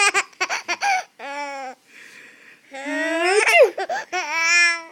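Baby laughing hard at a sneeze, in choppy high-pitched bursts and long squealing whoops, with a breathy gasp about two seconds in.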